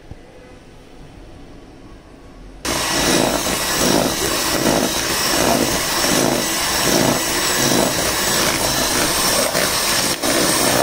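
Electric hand mixer switched on about two and a half seconds in, its beaters running through crumbly butter-and-flour cookie dough in the bowl. It runs loud and steady, with a brief dip near the end, as the second batch of flour is beaten into the creamed butter and sugar.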